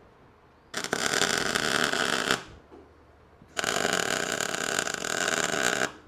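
Arc welding tack welds on steel square tubing: the arc runs in two bursts, the first about one and a half seconds and the second about two and a half seconds, with a short pause between.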